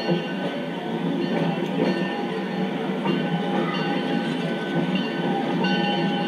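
Heritage Park Railway caboose rolling along the track: a steady rumble and rattle of the moving car, with a few thin, steady high tones over it.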